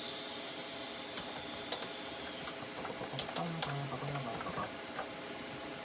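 Computer keyboard keys clicking in short runs of typing, over the steady whir of the PC's graphics card fans.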